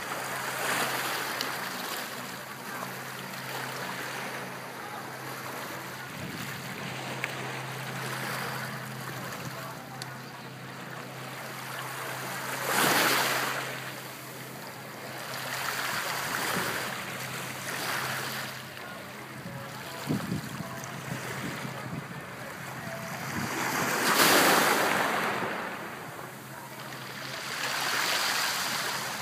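Small sea waves washing in at the shoreline, swelling and fading every few seconds, with the loudest surges about a third of the way in and again later on. A faint steady low hum runs underneath.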